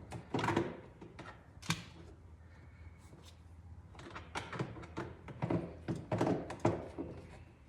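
Scattered light knocks and clicks of parts and tools being handled: a few near the start, then a quick run of them in the second half.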